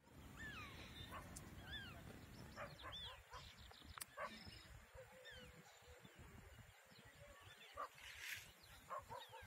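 Faint animal calls: many short, high, rising-and-falling notes scattered throughout, over a low rumble during the first three seconds.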